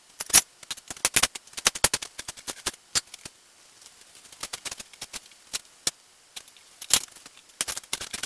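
Manual tire changer and a steel tractor wheel rim clanking as an old, rotten tire is worked off: a quick run of sharp metallic clicks and knocks, thinning out midway, then a few louder clanks near the end.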